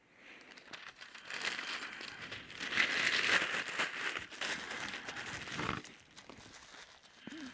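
Sheets of newspaper being crumpled and rustled by hand for kindling, a dense crinkling full of small crackles that swells and then stops suddenly about six seconds in.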